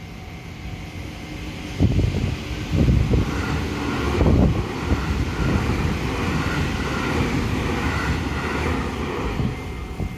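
Train passing over a level crossing: a low rumble with a few heavy thumps from the wheels about two to four seconds in, then steady rushing wheel noise that eases off near the end.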